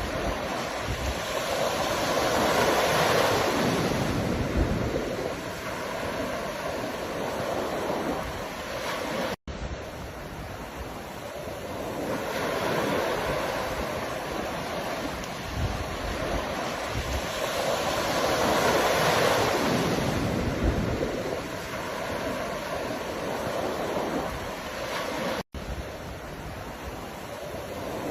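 Ocean waves breaking and washing on the shore in slow surges, swelling and falling back every several seconds. The sound cuts out for an instant twice.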